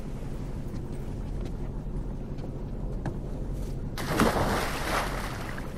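A body thrown overboard hits the sea about four seconds in: one sudden heavy splash that dies away within a second. Under it, the steady low drone of the fishing boat's engine.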